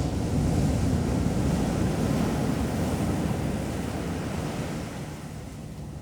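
Ocean surf breaking and washing up the beach, swelling early and slowly easing off, with wind rumbling on the microphone.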